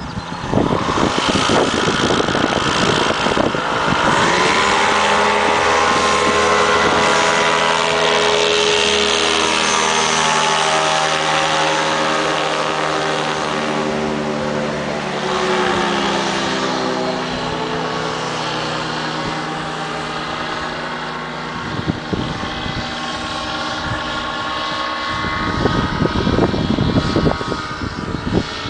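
Propeller engine of a small ultralight aircraft running at high power as it takes off and passes overhead. Its pitch drops as it goes by, then it grows fainter. Wind buffets the microphone near the end.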